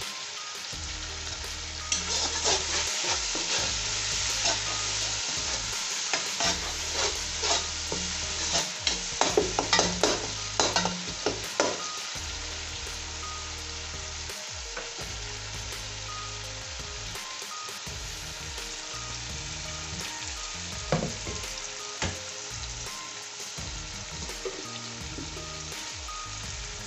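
Tomato, onion and whole-spice masala frying in hot oil in a large pot, a steady sizzle, while a slotted spoon scrapes and clinks against the pot as it is stirred, busiest in the first half.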